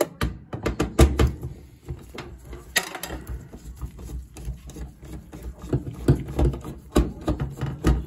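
Screwdriver and gloved hands working a furnace pressure switch off its sheet-metal mounting: irregular clicks, scrapes and knocks, loudest about a second in and again near the end.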